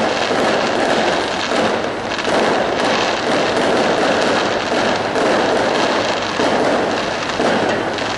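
Aerial fireworks bursting overhead in a dense, unbroken stream of crackling pops, loud and steady throughout.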